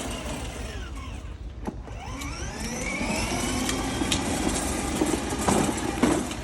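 Electric motor of a children's ride-on toy car whining as it runs, its pitch falling to a low about a second and a half in, then rising again as it speeds up. A few short knocks near the end.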